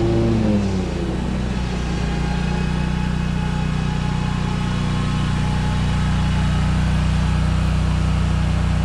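Zero-turn riding mower's engine running; its pitch drops about half a second in, then it holds a steady note that grows slightly louder as the mower comes closer.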